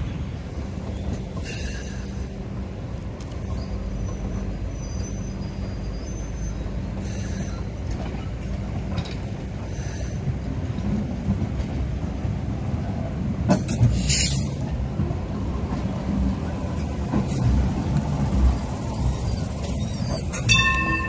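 Hong Kong Light Rail car running over track and pointwork with a steady low rumble. A loud, short, hissing burst comes about two-thirds of the way through. Near the end, as the car passes close, a wheel squeal of a few steady pitches sets in.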